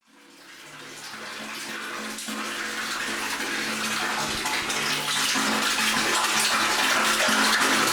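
Water pouring into a tank as it fills: a dense, steady rush of splashing water that swells up from silence over the first second or two and keeps growing slowly louder.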